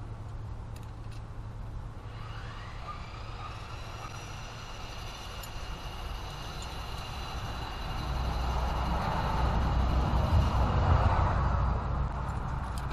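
A background engine or motor running over a steady low hum: a whine rises about two seconds in and then holds, and a low rumble grows louder over the second half before easing near the end.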